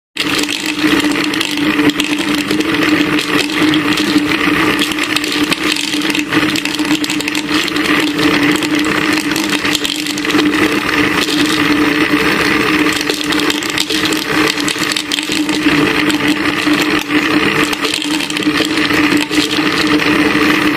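Small electric motor running steadily with a constant hum, driving a homemade bamboo grinding mill, with a continuous rattling grind as kernels are milled into flour. The sound cuts off abruptly at the end.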